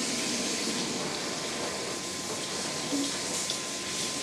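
Kitchen tap running steadily into the sink, a constant rushing hiss.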